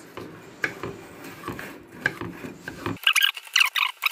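Kitchen utensil scraping and rubbing through mascarpone cream in a bowl, with small clicks against the bowl. About three seconds in, the low sound drops out abruptly and rapid high squeaky chirps take over.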